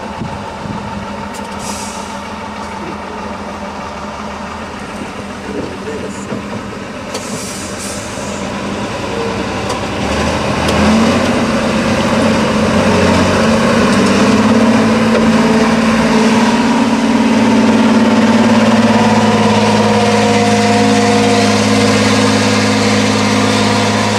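Tatra 813 8x8 trial truck's diesel engine working under load as it crawls over steep off-road terrain. It grows louder about ten seconds in, then holds a steady, heavy labouring note as the truck climbs.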